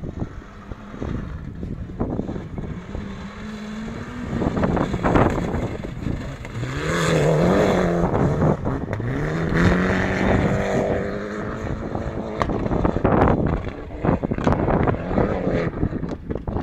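Peugeot S2000 rally car's two-litre four-cylinder engine revving hard as the car passes close by, its pitch climbing and dipping with the gear changes, loudest about seven to eight seconds in. Wind buffets the microphone on and off.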